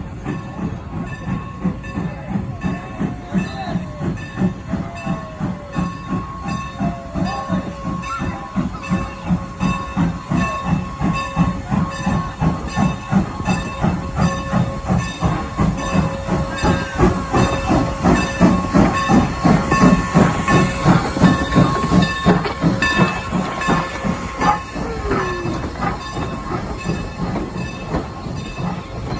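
Norfolk & Western 4-8-0 steam locomotive #475 working with its train, its exhaust chuffing in a quick, even rhythm with steam hiss. The chuffing grows louder to a peak about two-thirds of the way through, then eases off.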